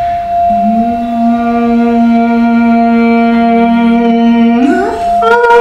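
A Tibetan singing bowl ringing with one steady tone while a woman's voice tones a long, held low note into it. Near the end the voice slides up about an octave and holds the higher note.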